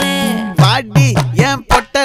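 Background music: a song track with a held note, then from about half a second in a quick rhythmic run of plucked, pitch-bending notes.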